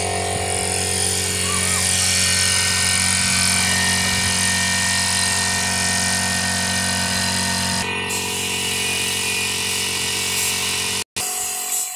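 Air compressor running steadily for spray painting: a constant motor hum with a hiss over it. The sound shifts slightly at about 8 s and cuts out for an instant near 11 s.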